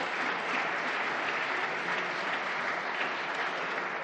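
Parliamentary deputies applauding: a steady wash of many hands clapping that begins to fade near the end.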